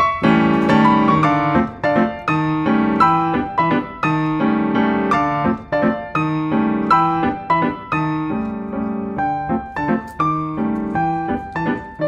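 Background piano music: single notes struck one after another over repeating low chords.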